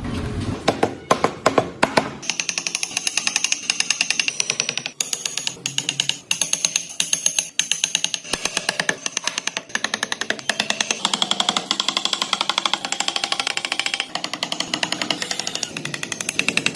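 A power tool working wood, running with a fast, steady rattle of rapid strikes and a high whine over it.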